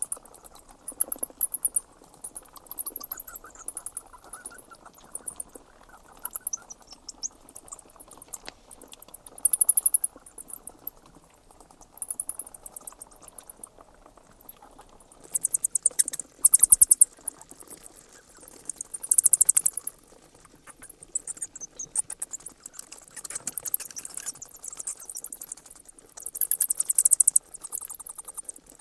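Bats squeaking: bursts of rapid, very high-pitched chittering, each a second or two long, coming again and again.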